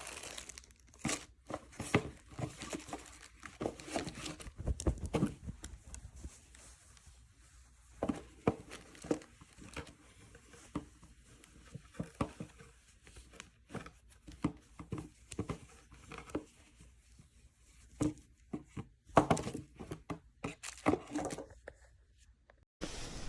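Irregular crinkling, rustling and light knocks of packaging and small parts being handled.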